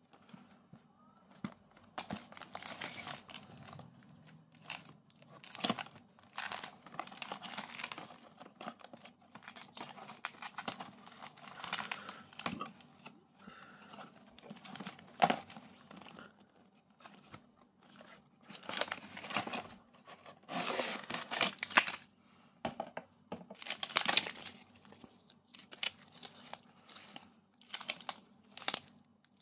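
Cardboard ration box being pulled open, then foil-wrapped military dry-ration packets crinkling and rustling as they are handled, in uneven bursts.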